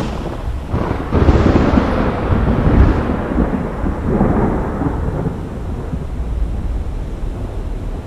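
Thunder rolling over the steady background noise of a storm. A loud rumble breaks in about a second in, swells again around the middle, then eases off.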